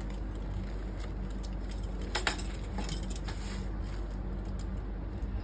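A package being handled and worked at by hand, with light scraping and clicking and one sharp click about two seconds in, over a steady low electrical hum.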